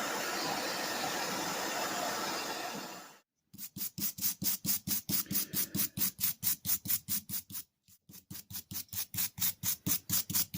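A steady hissing noise that cuts off abruptly about three seconds in, then quick, even back-and-forth rasping strokes of hand filing or sanding on a tool, about four to five a second, with a brief pause near eight seconds.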